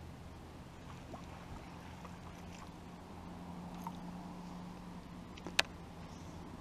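A single sharp click from a baitcasting reel as the rod is lifted, over a faint, steady low hum.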